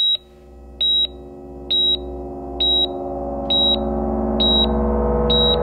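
Background music: a low synthesizer drone swelling in, with a short high electronic beep repeating about once a second, seven times.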